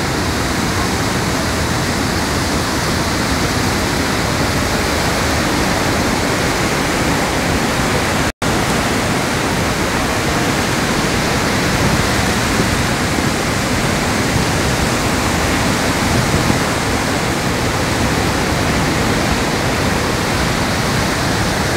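Swollen river in flood rushing past: a steady, loud, even rush of water that briefly cuts out about eight seconds in.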